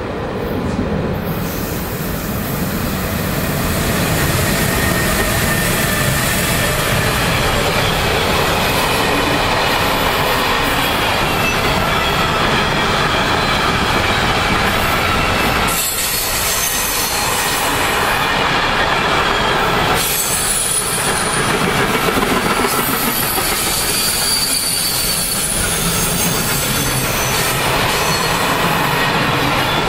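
Electric-hauled intermodal freight train of container and swap-body wagons rolling past close by, a loud steady rumble and clatter of wheels on the rails with high-pitched wheel squeal running over it.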